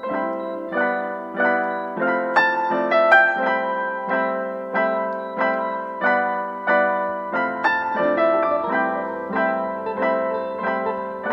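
Background piano music: chords struck one after another in a steady rhythm.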